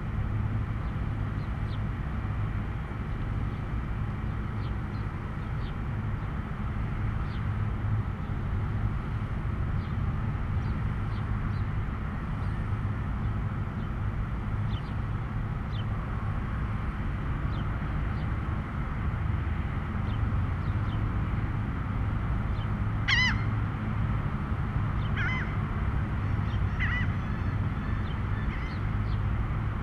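Steady low rumble of road traffic, with scattered short bird chirps. About two-thirds of the way in come three louder, harsh bird calls a second or two apart.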